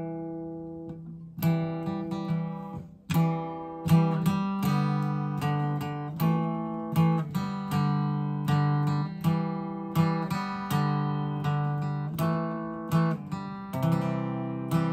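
Steel-string acoustic guitar strummed in a steady rhythm of chords, each strum ringing and fading before the next. There is a brief pause about half a second in, then the strumming settles into a regular pattern with the chord changing now and then.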